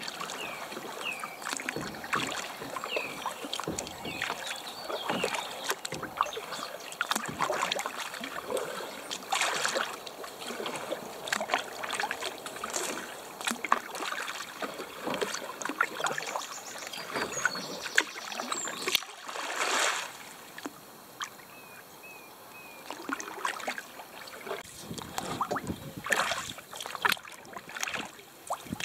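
Solo canoe paddling on calm water: the paddle dips and pulls with irregular splashes and drips.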